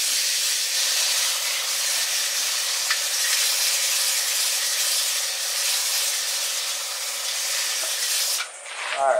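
Hand-held sandpaper pressed against a wooden tool handle spinning on a wood lathe: a steady rasping hiss, over the lathe's faint motor hum. The sanding stops shortly before the end.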